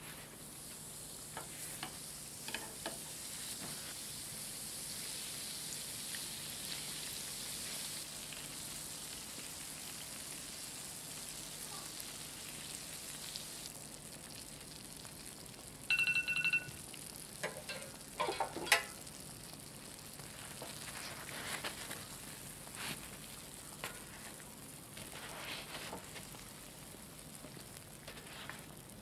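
Pączki deep-frying in hot oil: a steady sizzle, with scattered light clicks of wooden chopsticks against the doughnuts and pan. About sixteen seconds in there is a short two-tone electronic beep, followed shortly by a few sharp knocks.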